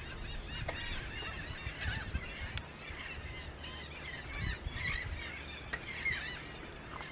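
A flock of birds calling: many short, overlapping calls in a constant chatter.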